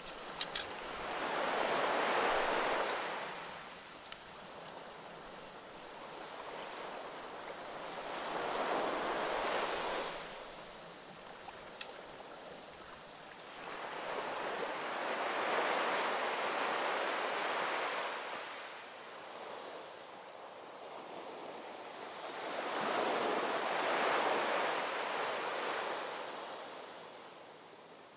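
Ocean waves washing onto a shore, swelling and fading four times, about every seven seconds.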